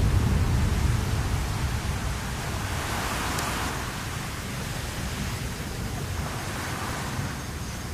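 Deep rumble of an erupting volcano's explosion dying down, with a hissing rush that swells briefly about three seconds in.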